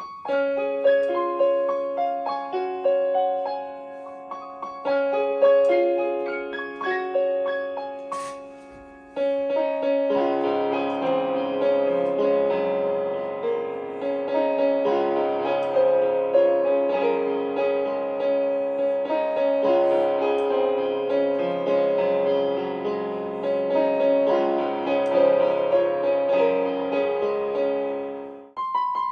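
MOSEN 88-key digital keyboard playing in a piano voice: a melody of single notes over a held chord, then from about nine seconds in fuller chords with bass notes join. The playing breaks off briefly near the end.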